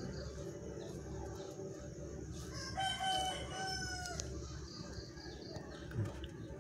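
A rooster crowing once, about three seconds in, lasting about a second and a half. A brief low thump comes near the end.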